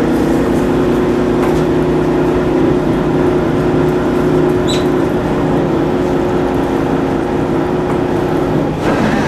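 A boat's motor runs with a steady hum over engine and water noise, then cuts off near the end. There is a brief high squeak about halfway through.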